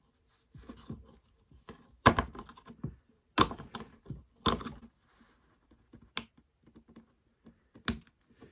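A knife blade carving and scraping at the cordless drill's plastic housing where it melted from overheating: a string of irregular sharp clicks and short scrapes, the loudest about two, three and a half and four and a half seconds in, and a sharp knock near the end.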